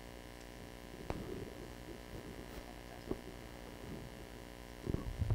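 Steady electrical hum from a public-address system in a quiet hall, with a faint click about a second in and a few low thumps near the end as the podium microphone is handled.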